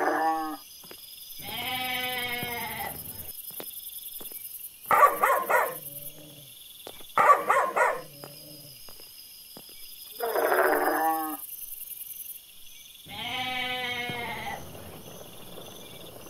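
Sheep bleating: three long bleats a few seconds apart, with a dog's short barks in two quick bursts about five and seven seconds in.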